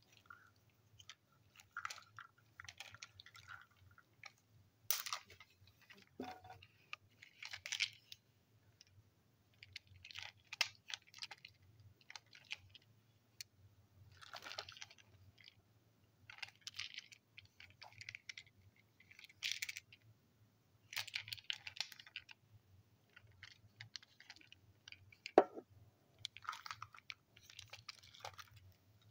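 Small toy railway trucks being handled up close: fingers rubbing and turning the plastic, giving scattered rustles, light rattles and clicks, with a few sharper clicks.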